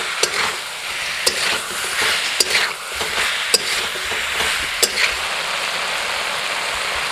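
Broiler chicken pieces sizzling as they fry in a metal kadai, with a spatula scraping and knocking against the pan about once a second while stirring. The stirring stops about five seconds in and the steady sizzle goes on.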